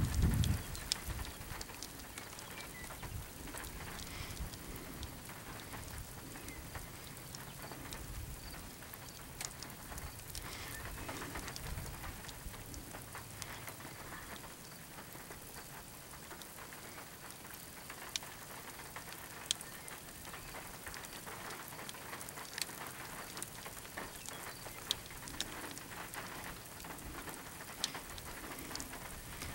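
Light rain: scattered drops ticking sharply every second or few over a soft steady hiss, with a brief low rumble right at the start.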